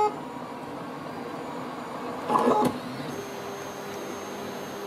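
Kossel delta 3D printer running mid-print: a steady whir of its motors and cooling fan. There is a brief louder noise about two and a half seconds in, and a thin steady whine from about three seconds in.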